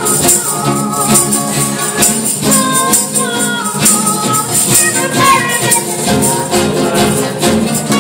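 Live acoustic guitar strummed in a steady rhythm, with singing over it.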